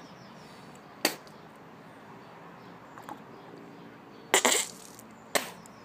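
Three short, forceful puffs of breath from a boy's mouth: a sharp one about a second in, a longer one about four seconds in, and a brief one just after. He is blowing out the dry cinnamon powder he has been made to eat.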